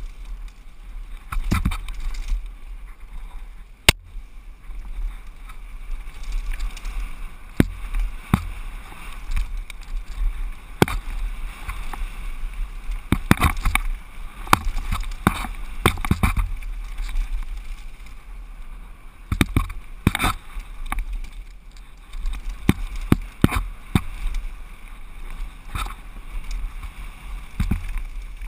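A mountain bike descending a rough downhill trail, picked up by a camera mounted on the rider or bike: a steady low rumble of wind and riding noise, broken by frequent sharp knocks and rattles as the bike hits bumps, roots and rocks.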